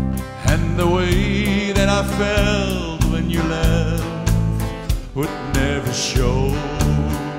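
Live country band: a man singing lead over guitars, bass and drums with a steady beat. He sings one phrase from about half a second in and another from about five seconds in.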